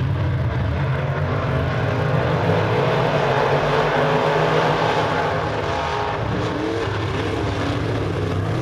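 A pack of open-wheel modified race cars running laps on a dirt oval, their engines blending into a loud, steady drone. Several engine pitches waver up and down as the cars work through the turns and along the straights.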